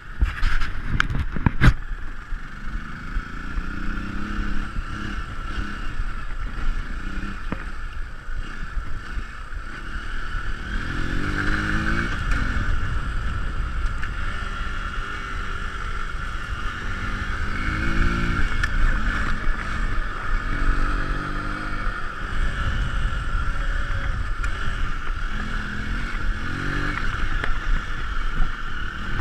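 Single-cylinder dual-sport motorcycle engine ridden hard on a dirt track, its pitch climbing again and again as the rider opens the throttle and shifts, over steady wind hiss. A few sharp knocks in the first two seconds.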